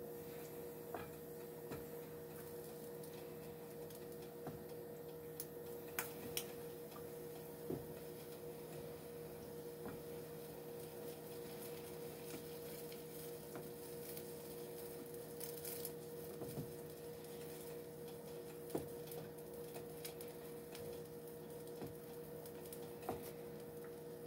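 Wooden spoon stirring thick chipped-beef white gravy in a nonstick skillet, with scattered soft clicks and taps of the spoon against the pan, over a steady low hum.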